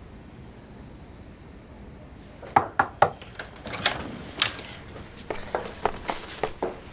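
Quiet room tone, then, from about two and a half seconds in, a quick, irregular run of sharp clicks and light knocks.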